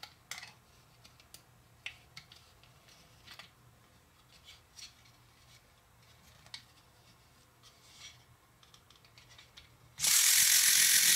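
Faint clicks and taps from handling a plastic battery-operated flying eagle toy, then about ten seconds in a loud, steady whirring starts abruptly as the toy's small electric motor and plastic gearbox run.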